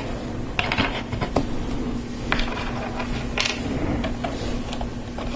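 Plastic LEGO Technic parts clicking and rattling as an axle is pushed through and gears are fitted onto axles, a handful of scattered sharp clicks. A steady low hum runs underneath.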